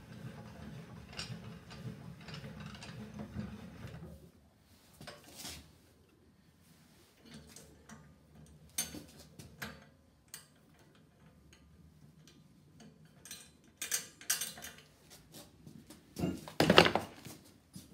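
Metallic clicks and clanks of a home-built Puckle gun's revolving steel cylinder block being turned and worked by hand, with a steady low hum under the clicking for the first few seconds. Near the end comes a louder, rougher burst about a second long.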